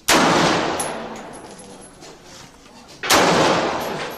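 Two gunshots about three seconds apart, each loud and sharp with a long echoing tail.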